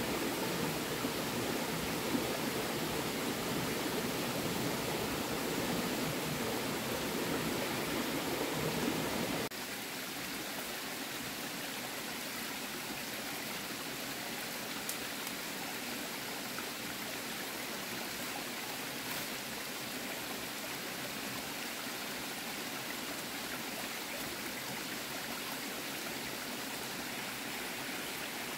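Steady rush of running stream water. About nine seconds in it drops suddenly to a quieter, thinner rush.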